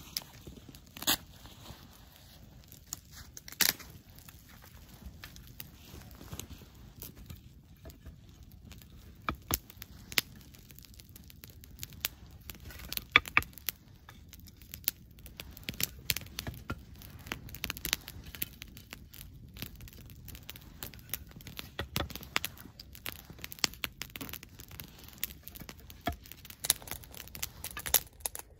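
Wood campfire of dry sticks crackling, with irregular sharp snaps and pops.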